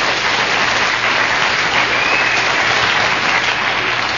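Studio audience applauding steadily at the end of a comedy sketch.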